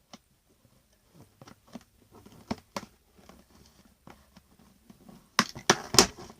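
Plastic and cardboard toy packaging being pulled and handled to free a doll: scattered clicks and crackles, with a cluster of louder, sharper snaps about five seconds in.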